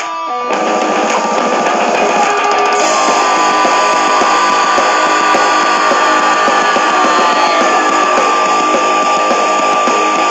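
Background rock music ending on a loud, dense, sustained distorted guitar sound with a steady high tone, which cuts off suddenly at the end.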